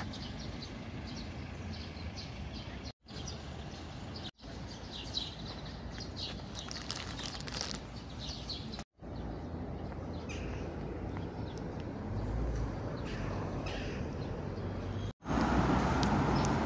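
Small birds chirping repeatedly over a steady background hum of city noise. The sound cuts out briefly several times, and near the end it gives way to louder street traffic noise.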